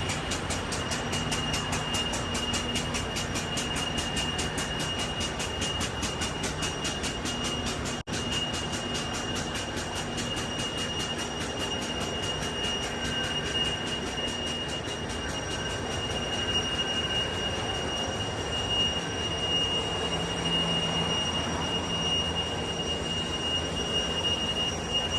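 Machinery running steadily with a constant high-pitched metallic squeal over a rapid, fine ticking and a low rumble.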